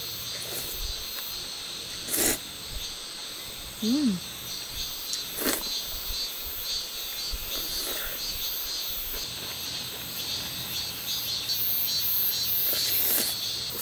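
A person slurping cold naengmyeon noodles several times, the loudest slurps about two and five and a half seconds in, with a short hum around four seconds. Insects chirr steadily throughout.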